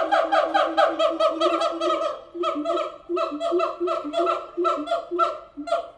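Siamangs calling together: a fast run of loud pitched hoots, about four or five a second, with a lower series of notes under higher ones, several voices overlapping.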